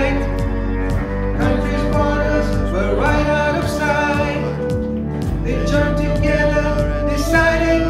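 A pop song performed by singers and a band: held, gliding sung notes over instrumental backing with a steady drum beat.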